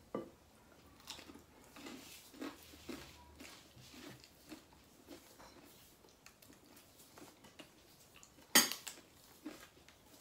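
Quiet eating at a table: chewing and scattered light clicks of plates and cutlery. One sharp clink of tableware about eight and a half seconds in is the loudest sound.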